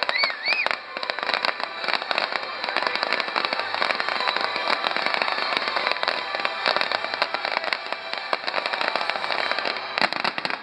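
Fireworks crackling, a dense unbroken run of rapid cracks and pops like strings of firecrackers. A short rising whistle comes in the first second, and a louder cluster of cracks comes near the end.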